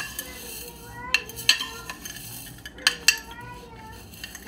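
Scattered sharp clicks and clinks of a glass jar of dry red lentils being handled and tilted, with four separate knocks over a quiet background.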